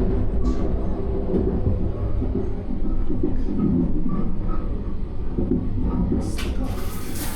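Running noise of the Sunrise Seto sleeper train, a 285 series electric train, heard from inside a car: a steady low rumble with faint knocks and rattles. About six seconds in, a loud hiss starts up.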